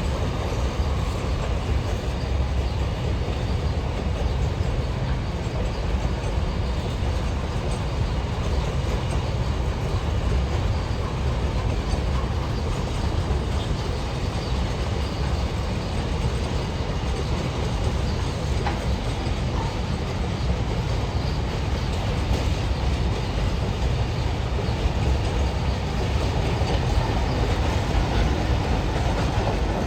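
Goods train passing at steady speed: a continuous wheel-on-rail noise, heaviest in the low range, that holds steady throughout.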